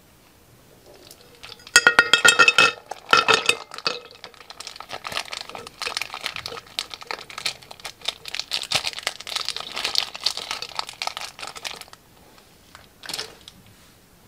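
Hard plastic charms and fruit slices clattering and clinking into a glass dish, loudest about two seconds in. This is followed by a long spell of crinkling from the plastic piping bag as hands squeeze and work the last pieces out.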